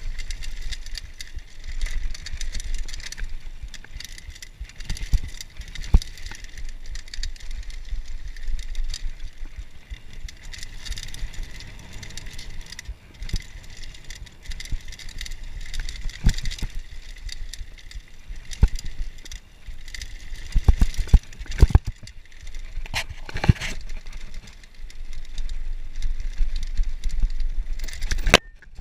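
Downhill mountain bike rolling fast down a dirt trail: a steady rumble of wind and tyres on dirt, with sharp knocks and rattles from the bike over bumps, several of them close together around 21 and 23 seconds in.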